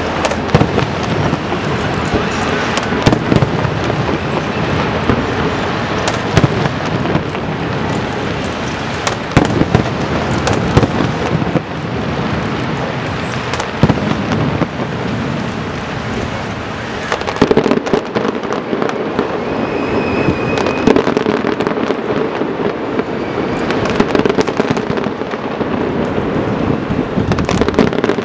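Aerial fireworks show: a dense, continuous crackle of bursting shells with many sharp bangs throughout.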